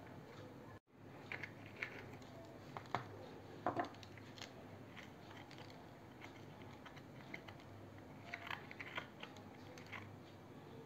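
Fingers prying open slit green chillies and pulling out the seeds: faint crackles and small clicks of chilli skin and seeds. They come in a cluster a second or so in and again about eight seconds in.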